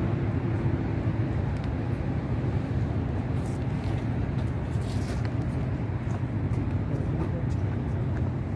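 Steady outdoor background noise: a constant low hum under an even haze of noise, with faint distant voices.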